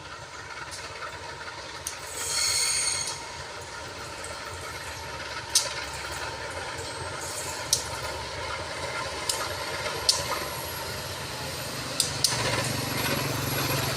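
Train hauled by a CC201 diesel-electric locomotive moving through the station, with a steady rail rumble. About two seconds in comes a brief high screech. A few sharp clicks follow, and the locomotive's low engine hum grows louder near the end.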